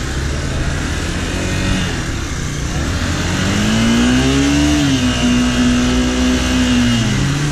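Motorcycle engine running at low revs, then revving up about three seconds in, holding the higher pitch for a few seconds and dropping back near the end.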